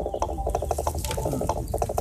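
Rapid clicking in two quick runs, like a ratchet, over a steady droning tone.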